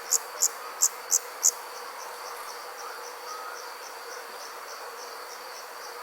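Insects chirping: loud, sharp, high chirps about three a second for the first second and a half, then fainter chirps at the same steady pace over a continuous high-pitched buzz.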